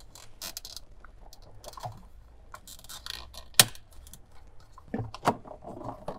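Plastic refrigerator sensor cover and interior panel being fitted by hand: light clicking and rattling, with one sharp snap about three and a half seconds in as a part clicks into place.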